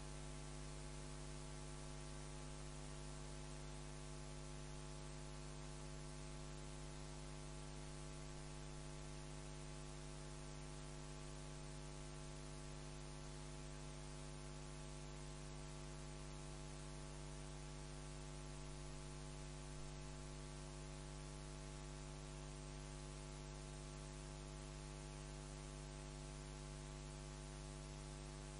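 Faint, steady electrical mains hum from the sound system: a low buzz with many evenly spaced overtones over a layer of hiss, unchanging throughout.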